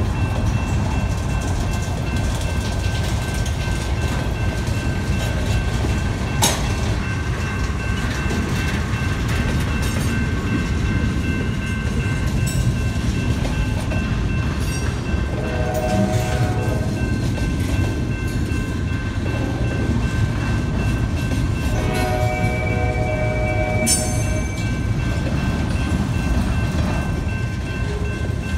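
Double-stack intermodal container train rolling past, its cars making a steady heavy rumble with a thin high squeal running throughout and a couple of sharp clanks. A train horn sounds briefly twice, about halfway through and again a few seconds later.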